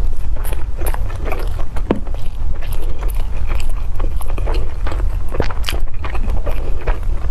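Close-miked mouth sounds of a person chewing a mouthful of steamed dumpling: many small clicks and smacks, close together, over a steady low rumble.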